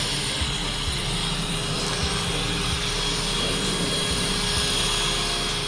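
Electric polisher running steadily, a constant motor hum with a thin steady whine above it, while the motorhome's finish is buffed.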